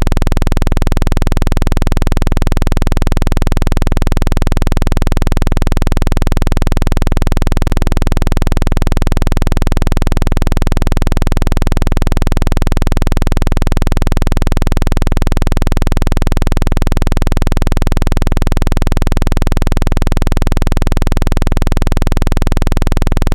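Loud, steady, low synthetic buzz played as a water-eject tone, meant to vibrate trapped water out of a phone speaker. It dips briefly about every second and a half.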